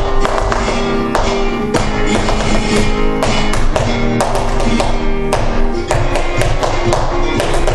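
Flamenco music in the tientos style: guitar with held notes, cut through by frequent sharp percussive taps.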